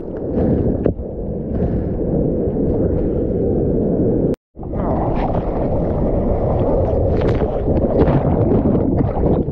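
Churning shorebreak whitewater rushing and washing over a GoPro in the surf, heard as a loud, dull roar as the camera goes under and surfaces in the foam. The sound cuts out completely for an instant a little over four seconds in.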